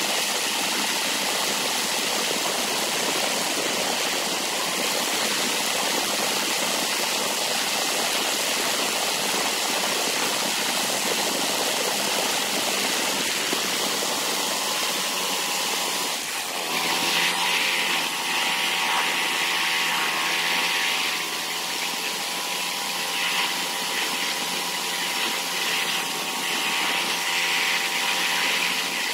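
Flathead Briggs & Stratton single-cylinder engine driving a homemade belt-drive motorized bicycle at road speed, under heavy wind rush on the microphone. About sixteen seconds in the sound dips briefly, and the engine then settles into a steady, even drone.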